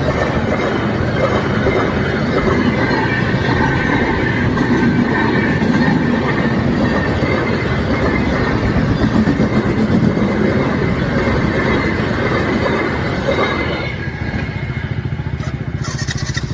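Train running on the track: a dense rumble with wheels clattering over the rails. About fourteen seconds in it drops away to a quieter, steady pulsing sound.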